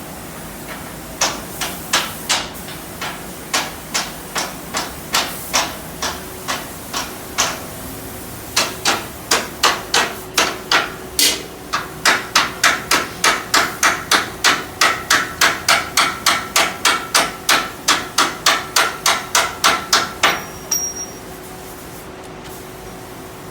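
Hammer blows on the steel of a truck bed's side gate, with a metallic ring. The blows come irregularly at first, then settle into fast, steady hammering of about two or three blows a second before stopping shortly before the end.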